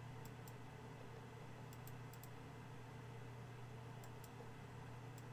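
Faint computer mouse clicks, mostly in quick pairs, every second or two, over a low steady hum.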